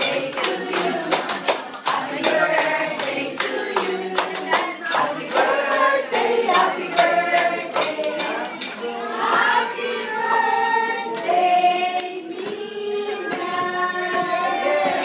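A group of voices singing a song together, with hands clapping along, most densely over the first half.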